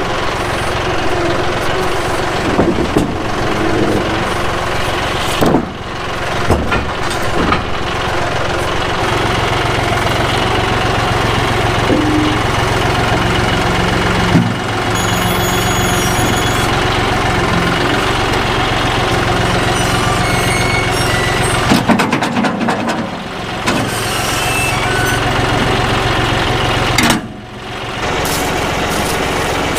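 John Deere 5055E tractor's three-cylinder diesel engine running steadily, with scattered knocks and rattles; the level drops briefly a few times.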